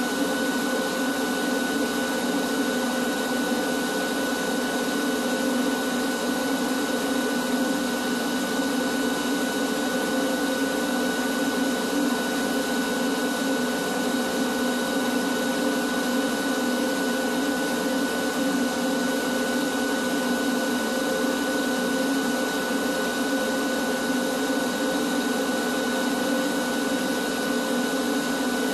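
Vacuum cleaner running steadily through a long hose wand, vacuuming dust off a warehouse ceiling; an even motor hum with a steady high whine over it.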